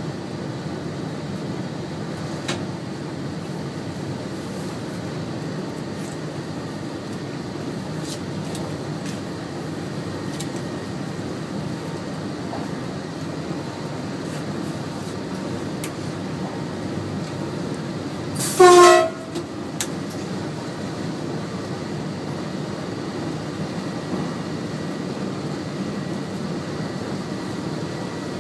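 Steady running noise of a moving train heard inside the driver's cab, with one short horn blast about two-thirds of the way through, the loudest sound.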